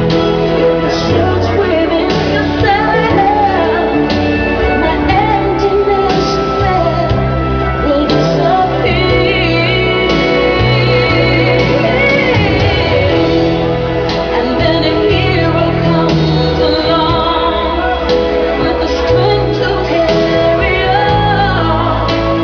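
Pop music with singing, played loud and continuous over a steady bass line.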